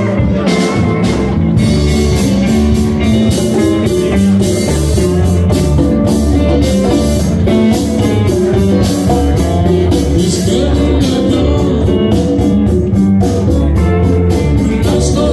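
Live band playing a rock-and-roll tune with electric guitars, drum kit and congas, with a singer at the microphone; a steady drum beat drives it.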